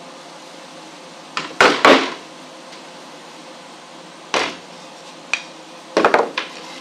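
A handful of sharp knocks and clunks from metal parts and tools being handled during an axle build: a loud pair about two seconds in, single knocks near four and a half and five and a half seconds, and a quick cluster around six seconds.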